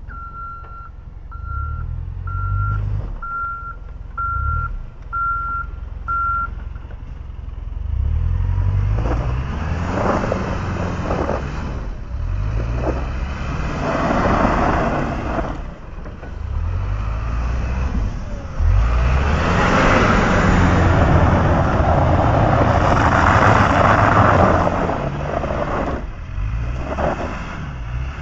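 A box truck's reversing alarm beeps seven times, about once a second. Then the truck's engine runs under load as its tyres, fitted with snow chains, churn through snow, louder in the second half.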